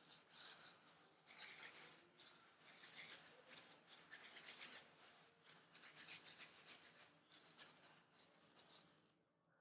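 Thin disposable plastic gloves rubbing and crinkling as hands press and roll a sticky rice mixture into balls, in a faint, irregular run of rubbing strokes that stops near the end.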